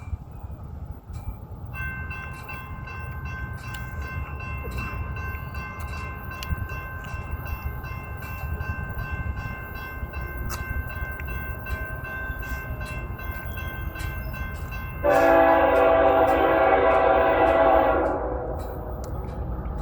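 Train approaching with a low rumble, while a steady high ringing with regular ticks starts about two seconds in. Near the end the locomotive sounds one long, loud horn blast of about three seconds.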